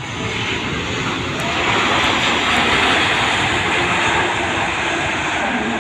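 Jet noise from a passing Malaysia Airlines Airbus A330-200's Pratt & Whitney PW4000 engines, a loud even roar that builds to its peak about halfway through, then eases slightly.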